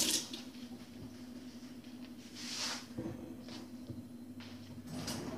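A running kitchen tap shuts off at the start, leaving a steady low hum with faint handling noises: a soft swish about halfway through and a few light knocks.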